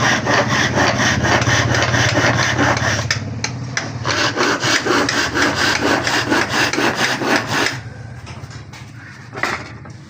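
Wood being sawn: a loud, rhythmic rasping of repeated strokes over a steady low hum for the first three seconds. It falters briefly, resumes, then dies down about eight seconds in.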